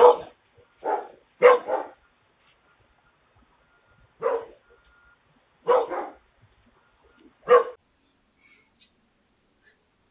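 A dog barking, about six short barks at irregular intervals with pauses of up to two seconds between them.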